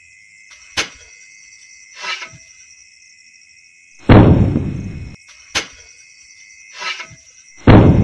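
A series of sharp clicks and short swishes, with two heavy thuds, about four seconds in and near the end, that die away over about a second. Under them runs a steady high-pitched hum.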